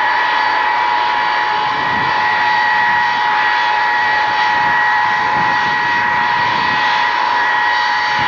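Ilyushin Il-62M's four rear-mounted Soloviev D-30KU turbofans running at taxi power: a steady jet whine over a rushing hiss.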